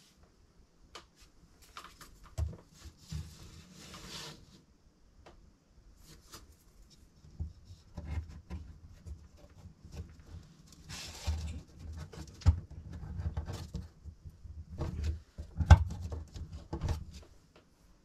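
Thin plywood kit pieces being handled and pressed together by hand: scattered light clicks, taps and wood-on-wood scrapes, with a sharper knock near the end.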